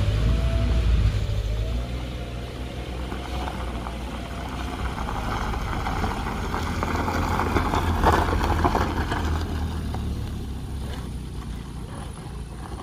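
A small MPV driving past on a loose gravel road: a low engine hum with tyres crunching over the gravel, swelling to its loudest about eight seconds in as the car goes by, then fading.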